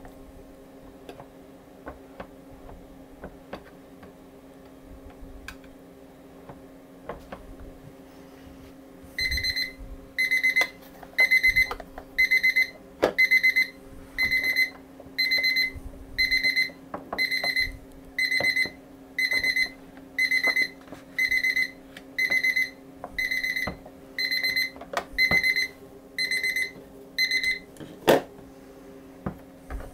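A timer alarm sounds a long run of short, high beeps, a little over one a second, marking the end of a timed processing step. A sharp click follows just after the beeping stops. Light knocks of tray handling come before it.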